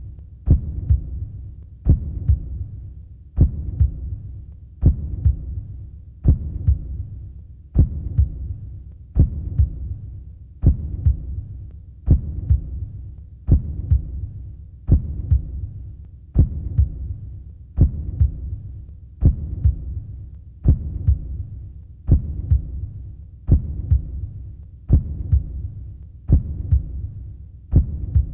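Heartbeat sound effect: a slow, even double thud about every second and a half over a low hum.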